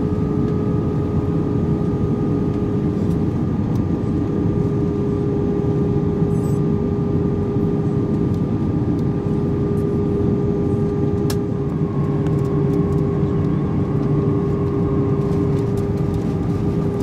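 Airbus A320 cabin noise from a window seat over the wing on approach: a steady rush of airflow and engine hum carrying a steady droning tone. A single sharp click sounds about eleven seconds in.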